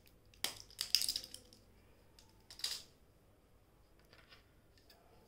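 A few sharp clinks and taps of small hard objects being handled while preparing the face-pack paste. There is a cluster of clicks about half a second in and the loudest about a second in, then a single clink near three seconds and a faint one about four seconds in.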